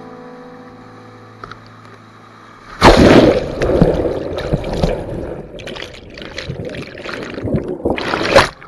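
Faint music fades out, then about three seconds in loud churning, gurgling whitewater bursts in, heard through a camera plunged under the water as the kayak goes over in the rapids.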